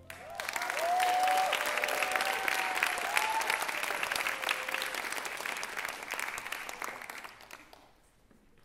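Audience applauding, with a few whooping cheers in the first few seconds; the clapping dies away near the end.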